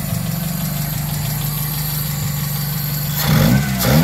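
Toyota Corolla 2E inline-four engine running steadily, then revved up and down twice near the end. It is running again after the distributor repair that cured its crank-no-start.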